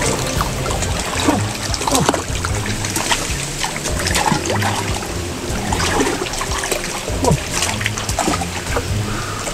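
Water splashing and sloshing in a muddy stream as a man wades and grapples with a king cobra, over steady background music.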